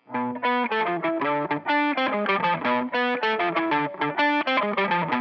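Indie rock song starting with an effects-laden electric guitar playing a fast, repeating picked figure of bright notes.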